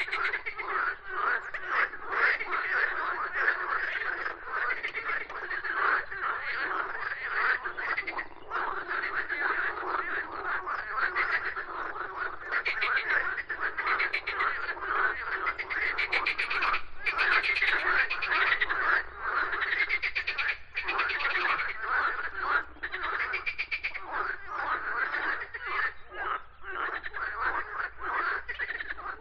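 A dense chorus of many frogs croaking, their rapid pulsing calls overlapping without a break.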